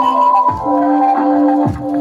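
Electronic background music: sustained synth tones over a slow beat with deep, falling bass kicks.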